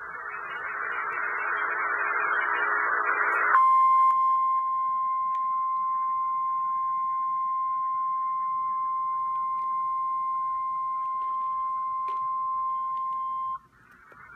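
Radio static hiss for a few seconds, then the NOAA Weather Radio warning alarm tone: a single steady tone held for about ten seconds that cuts off sharply near the end, the signal that a warning broadcast, here a tornado warning, is about to follow. The static hiss returns after the tone.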